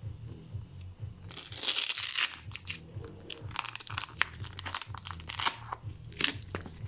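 Crinkling and crunching handling noises, densest about a second in and then scattered clicks and rustles, over background music with a steady bass beat.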